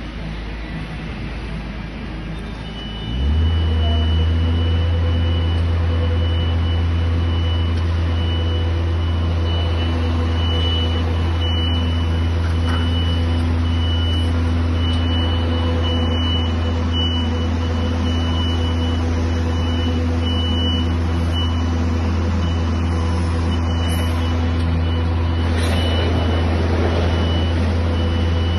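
Battery-electric Linde reach truck running as it drives: a loud, steady low hum that starts suddenly about three seconds in and holds, with a thin high tone above it that drops in and out.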